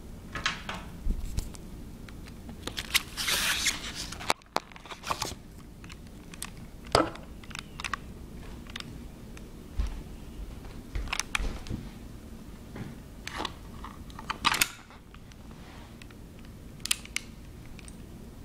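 Handling of a Socom Gear M1911 airsoft pistol and its packaging: scattered sharp clicks and knocks, with a burst of crinkly rustling about three seconds in.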